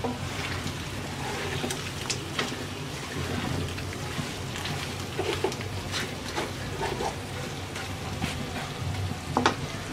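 Beef pieces slow-frying in mustard oil in a karahi, sizzling with scattered sharp crackles, while a wooden spatula stirs and scrapes through the meat. This is the low-heat bhuna stage, where the meat browns dark without burning the spices.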